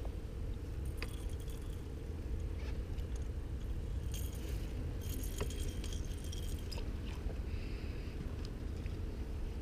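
Scattered small clicks and light rattling as a flathead catfish is unhooked by hand in a mesh landing net, over a low steady rumble.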